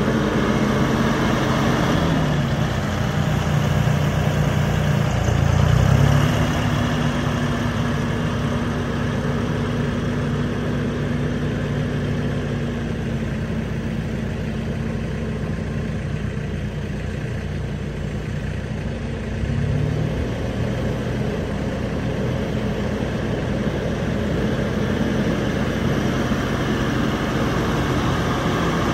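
2015 John Deere 5075 tractor's diesel engine running as the tractor drives around. The engine note drops about two seconds in, holds steady for a long stretch, then picks up again about twenty seconds in.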